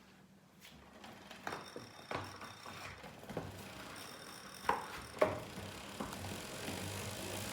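Wahoo Kickr Core smart trainer's flywheel starting to spin, with irregular sharp ticks roughly every half second to second, the two loudest a little past the middle, and a steady whir building near the end. The ticking is a noise from the flywheel.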